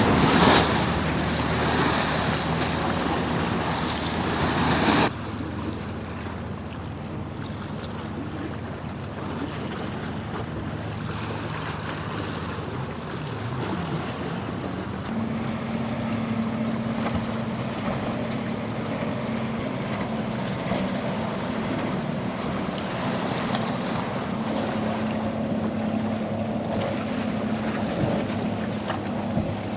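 Boat engine noise mixed with waves washing and wind on the microphone. The sound drops suddenly about five seconds in. A steady low engine hum comes in at about fifteen seconds and holds to the end.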